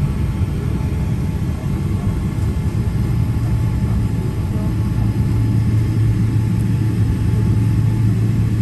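Boeing 777-300ER's GE90 jet engines running, heard from inside the cabin as the airliner taxis: a steady low rumble with a deep hum that grows louder about halfway through.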